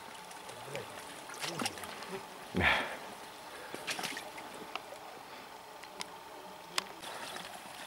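Shallow river water flowing and splashing, with scattered light clicks and one brief louder rush of noise about two and a half seconds in.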